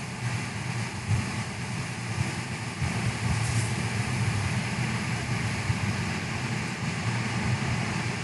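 A steady machine hum with a few light clicks, typical of a shop motor running.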